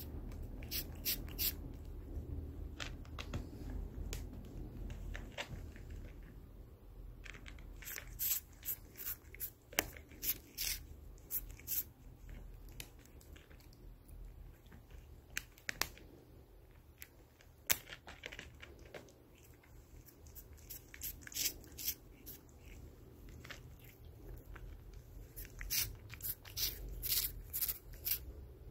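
A Siamese cat licking and nibbling at denim trousers right by the microphone: an irregular scatter of short, crisp rasping clicks in clusters, with a low steady rumble underneath.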